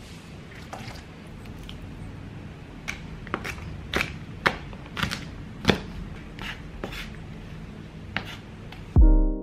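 A chef's knife chopping and mincing garlic cloves on a wooden cutting board: a run of uneven knife strikes that get sharper and closer together after the first few seconds. Keyboard music comes in loudly just before the end.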